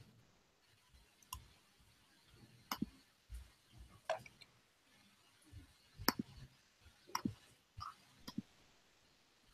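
Faint, scattered clicks, about eight in irregular succession, from someone working a computer's mouse or keys while navigating the screen.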